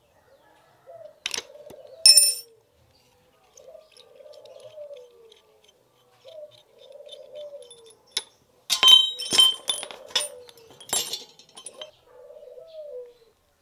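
Metal clinks as a spanner and rusty bicycle crank parts are handled and knocked together, a few single clinks early and a quick cluster about 9 s in. Behind them a dove coos over and over, one call every two to three seconds.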